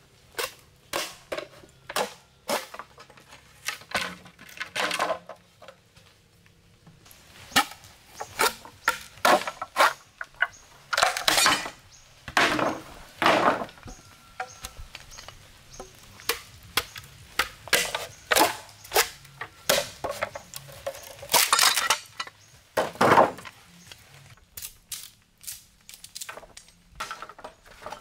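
Irregular series of sharp knocks and chops on bamboo from hand-tool work, several with a longer rasping stroke.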